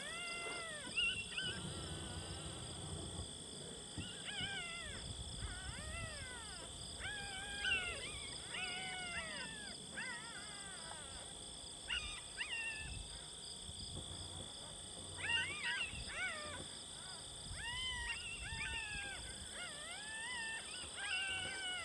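Coyote pup distress sound played from an electronic predator call: high, arching yelps and whines repeated in runs with short pauses between them.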